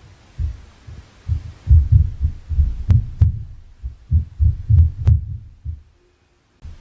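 Inter-floor impact noise from the apartment above, heard through the ceiling: a run of dull, heavy thuds, several a second, like feet pounding on the floor upstairs. A few sharper knocks stand out among them about three seconds in and again about five seconds in.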